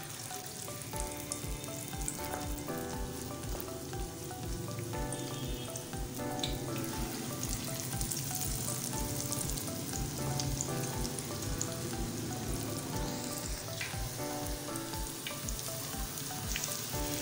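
Gram-flour (besan) pakoras of shredded potato and onion deep-frying in hot oil in a pan: a steady sizzle and crackle that grows louder over the first few seconds as more batter goes in.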